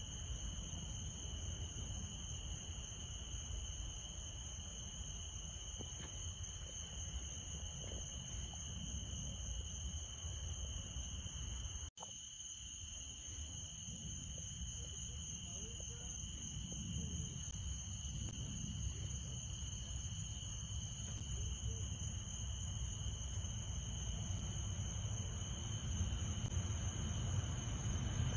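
Insects trilling steadily at two high pitches over a low rumble, with a brief dropout about twelve seconds in.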